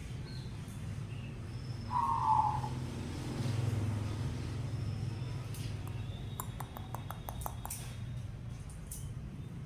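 Zebra dove (perkutut) giving a single short coo about two seconds in, over a steady low hum. Near the end comes a quick run of about eight sharp clicks.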